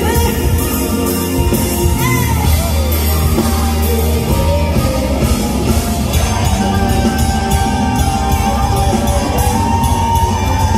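Female singer singing live into a handheld microphone over loud backing music with a steady beat, holding one long high note through the second half.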